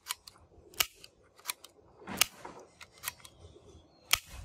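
Small orange plastic toy pistol clicking as it is worked by hand, about six sharp plastic clicks at a steady pace of roughly one every two-thirds of a second.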